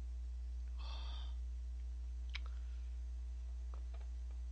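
A man's short breathy sigh about a second in, over a steady low electrical hum, with a few faint clicks later on.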